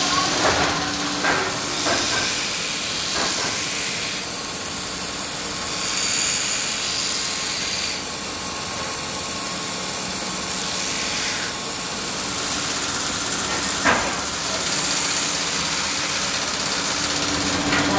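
Spinning wheel of a belt-driven workshop machine with a wooden knife handle pressed against it to shape and smooth it, a steady hiss that rises and eases as the pressure changes. A few sharp knocks come through, the clearest about 14 seconds in.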